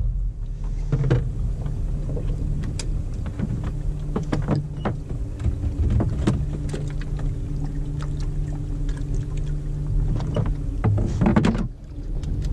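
A fishing boat's engine running steadily, with scattered clicks and knocks over it.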